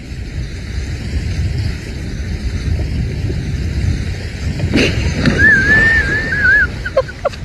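Steady low rumble of wind on the microphone, then about five seconds in a sudden crash and splash as a man is butted into a pond, followed by a high wavering cry.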